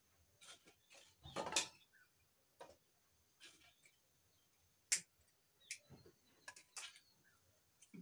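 Scattered scrapes and sharp clicks of dry kindling sticks being handled and laid in the firebox of a clay wood-burning stove as the fire is laid and lit, with a longer scrape about a second and a half in and the sharpest click about five seconds in.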